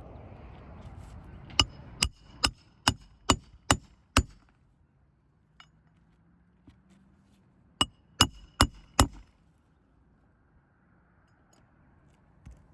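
Hammer striking metal during a repair: seven quick blows, a pause of a few seconds, then four more, each with a short ringing note.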